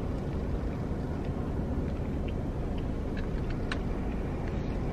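Steady low hum inside a car's cabin, with a few faint soft clicks of someone chewing a mouthful of bagel.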